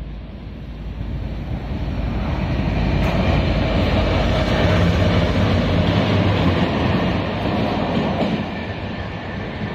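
Taiwan Railway R40 diesel-electric locomotive running through the station with a short freight train: a steady engine hum with wheel noise on the rails. It grows louder as the train nears, is loudest from about three to eight seconds in, then eases off as it passes away.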